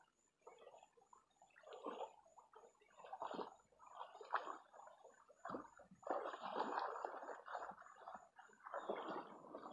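Muddy paddy water sloshing and swirling in irregular surges as a long-handled levelling rake is dragged through a flooded rice field and a person wades through the mud, with longer continuous sloshing about six seconds in and again near the end.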